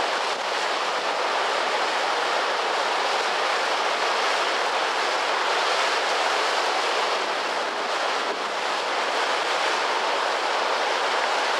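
White water of Niagara Falls pouring over the rock ledge at its brink: a steady, even rush of falling water.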